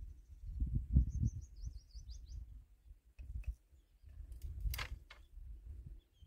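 A bird's quick trill of about eight short, high notes about a second in, over a low rumble, with a few sharp clicks near the end.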